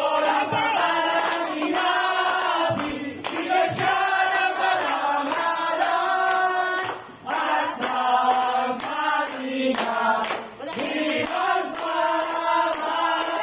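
A group of men and women singing together around a birthday-style cake, clapping their hands along with the song.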